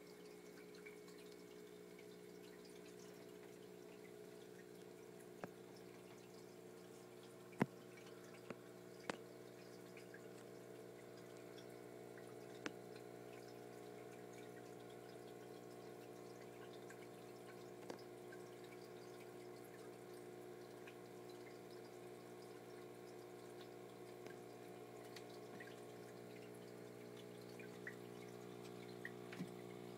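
Quiet aquarium equipment: water trickling from a hang-on-back filter over the steady hum of the filter and powerhead pumps. A few sharp clicks, the loudest about 7.5 seconds in.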